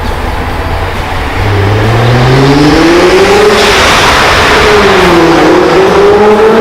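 Nissan GT-R's twin-turbo V6, fitted with Go Fast Bits T9202 blow-off valves, accelerating under load. The engine pitch rises, dips briefly and rises again, with a strong hissing rush over it from about halfway through.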